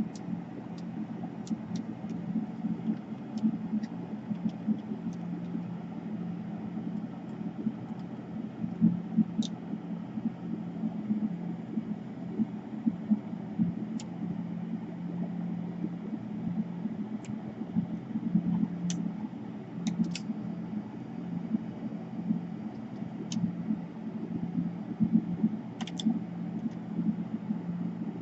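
Steady low background hum with a few scattered light clicks, typical of small laptop parts and wires being handled and pressed into place during reassembly.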